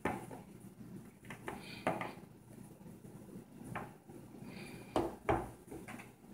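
Small plastic toy figures being picked up and set down on a wooden tabletop: a few separate light clicks and knocks, with a close pair about five seconds in.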